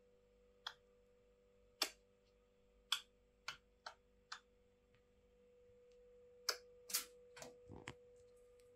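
A pet Eurasian red squirrel scrambling on and down its wire cage: faint, scattered sharp clicks and taps about once a second, then a quick run of scratchy taps near the end as it climbs down the cage front.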